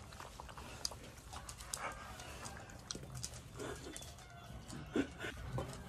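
German shorthaired pointer puppies lapping from a stainless steel bowl, with many quick wet clicks of tongues and muzzles. A couple of brief puppy vocal sounds come about three and a half and five seconds in.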